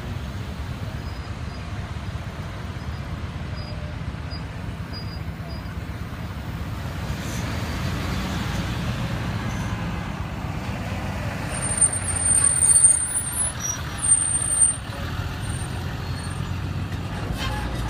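Vehicles, a van, an SUV and a horse trailer, driving slowly past with a steady low engine and tyre rumble. Midway a high-pitched squeal sounds twice, about a second each time.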